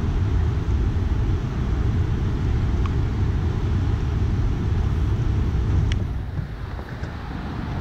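Wind buffeting the microphone as a low, fluctuating rumble over a steady rush of water from a dam's open spillway gates; the rumble eases about six seconds in. A few faint clicks.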